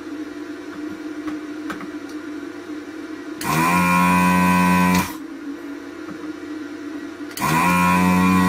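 Built-in vacuum pump of an Anesty ZD-915 desoldering station switching on twice as the gun's trigger is pulled, sucking molten solder from circuit-board joints. Each time it runs up in pitch, hums steadily for about a second and a half, then cuts off. A lower steady hum continues between the two runs.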